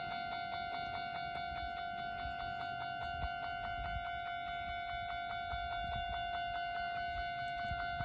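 Japanese railway level crossing alarm ringing: a steady electronic ding repeated several times a second, warning that a train is approaching.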